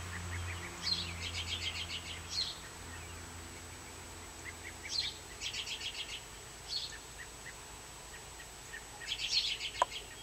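A songbird singing the same short phrase three times, about four seconds apart: a single note, a quick run of rapid notes, then a closing note. A single sharp click comes near the end.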